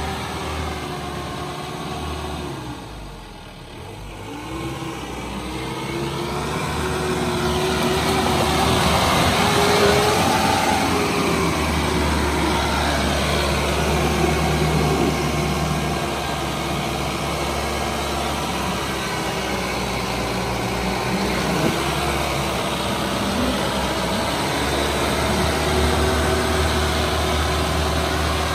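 Mahindra Bolero 4x4 pickup's diesel engine working under load as the truck crawls through deep mud ruts, its revs rising and falling. It is quieter for a moment a few seconds in, then grows louder from about seven seconds in.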